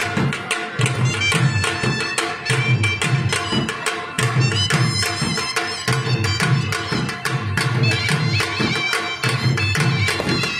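Bagpipes and a dhol barrel drum playing a fast traditional folk tune: the pipes' steady drone under the melody, with quick, regular drum beats.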